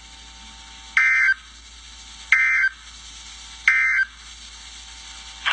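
NOAA Weather Radio SAME end-of-message data bursts: three short, harsh digital screeches about a second in and then at roughly 1.3-second spacing, each about a third of a second long, over steady receiver hiss. They are the EAS end-of-message code that closes the required weekly test.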